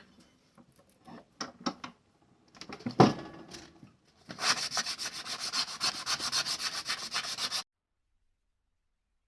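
Hand-sanding on the knife: a few light handling clicks and a sharp knock, then a run of fast back-and-forth rubbing strokes that cuts off suddenly.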